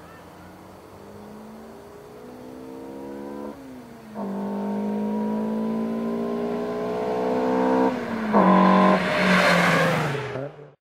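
Toyota AE86 Corolla Levin with a swapped 20-valve 4A-GE Blacktop four-cylinder on individual throttle bodies, accelerating hard toward the camera. The engine note climbs, drops at two upshifts, then is loudest as the car passes and falls in pitch as it goes by.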